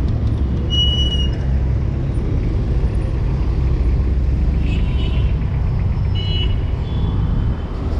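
Steady low rumble of city street traffic, with a short high-pitched squeak or whistle about a second in and a few brief high sounds near the six-second mark.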